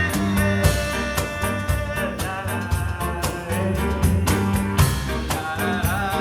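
Live small-band jazz: hand percussion and cajon keeping a busy steady rhythm under a walking bass line, with long held melody notes that slide in pitch.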